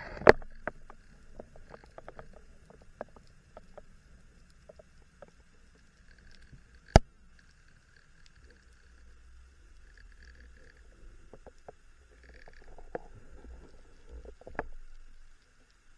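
Underwater noise: scattered clicks and knocks over a faint low rumble, with two sharp, much louder clicks, one just after the start and one about seven seconds in.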